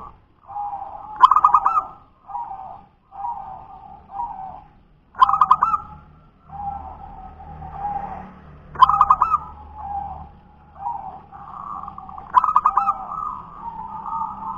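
Zebra dove (perkutut) singing its cooing song. Four loud phrases come about three and a half seconds apart, each with a rapid stuttering run of notes, and softer coos run between them.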